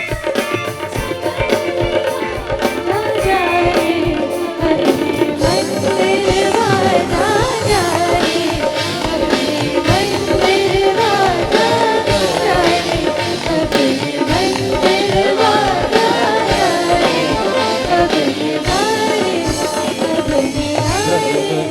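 Live bhajan band music: a melody line that slides between notes over a steady drum beat.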